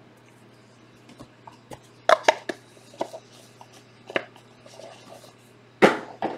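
Handling noise from a cardboard trading-card box being picked up off a tabletop and handled: scattered clicks and knocks, loudest about two seconds in and again near six seconds, over a faint steady low hum.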